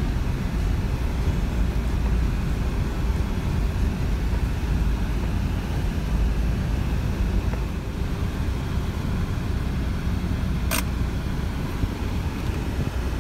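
Steady low rumble of a Toyota 4x4's engine and tyres on a dirt track, heard from inside the cabin, with one sharp click near the end.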